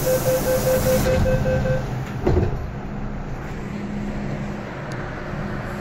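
MTR M-train pulling out of the station, heard from inside the car. A burst of air hiss and a fast beeping tone fade out in the first two seconds, then a thump, then a steady running rumble with a low hum.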